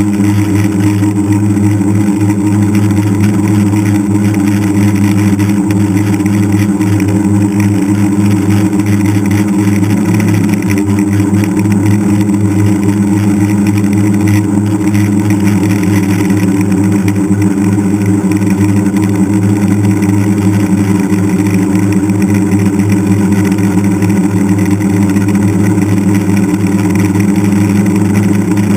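DJI Flame Wheel F550 hexacopter's six brushless motors and propellers running with a loud, steady hum in flight, picked up close by the camera on the craft, with a brief pitch wobble about ten seconds in.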